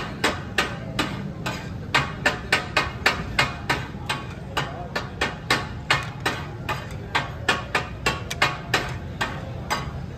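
Metal spatulas striking and chopping on a tawa griddle in a rapid, uneven metallic clatter of about three to four strikes a second: the 'katakat' chopping and mixing of fish on the griddle.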